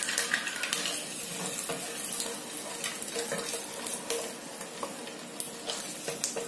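Boiled eggs frying in hot oil in a pan: a steady sizzle with scattered pops and crackles, easing slightly as the eggs are lifted out of the oil.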